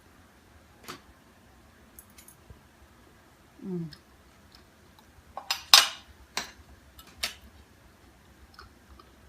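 Cutlery clicking and scraping against a plate as a piece of baked chicken roulade is cut, a handful of sharp clinks with the loudest run of them a little past halfway. A brief low hummed sound comes just before the middle.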